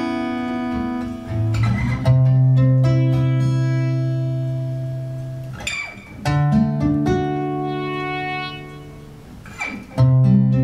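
Acoustic guitar playing slow chords: each chord is strummed about every four seconds and left to ring and fade before the next.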